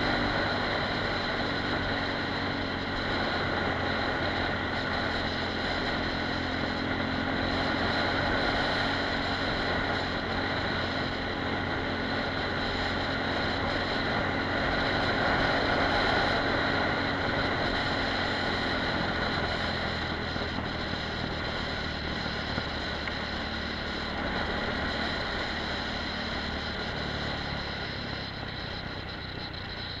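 Apollo RX250 supermoto's engine running steadily while riding, heard from a helmet-mounted camera with wind and road noise over it. The engine's low tone fades back after about twenty seconds and the whole sound eases slightly toward the end.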